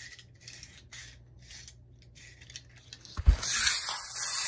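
Tin wind-up soldier toy being wound by its key: a repeated rasping stroke, about two to three a second. About three seconds in there is a thump, followed by a loud steady hiss.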